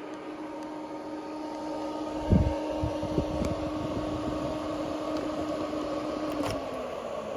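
Bitmain Antminer L3+ cooling fans running with a steady hum. About two seconds in there are a loud knock and several lighter knocks as the power plug is handled. A sharp click comes near the end as the plug is pulled, and the fan tone sags and dies away as the fans spin down.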